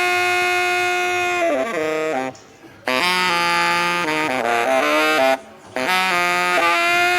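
Background music with a saxophone-like lead: a long held note, then a melody in short phrases, with brief breaks about two and five seconds in.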